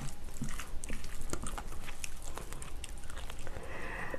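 Metal spoon and chopsticks clinking and scraping against a ceramic bowl as food is mixed together, a scatter of short irregular clicks.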